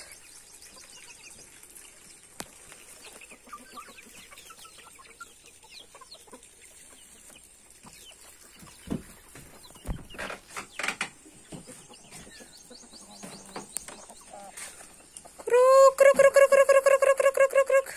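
Free-range chickens foraging, with faint scattered clucks over a steady high-pitched insect buzz and a few louder clucks about ten seconds in. About two and a half seconds from the end, a loud call on one steady pitch begins, rising into it and then pulsing rapidly several times a second.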